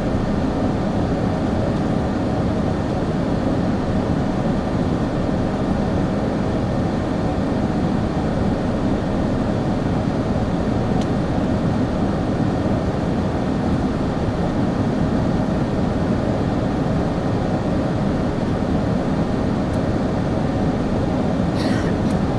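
Steady engine and airflow noise of an Airbus A380 in flight, heard from inside the passenger cabin, with a few faint steady tones in it. A brief faint higher sound comes near the end.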